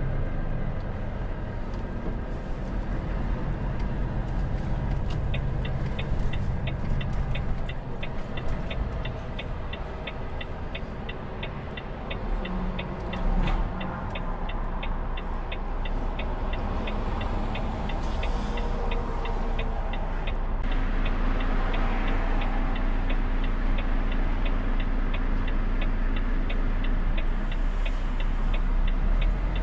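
Volvo truck's diesel engine running while driving, heard inside the cab, with the turn-signal indicator ticking at an even, quick rhythm from about five seconds in.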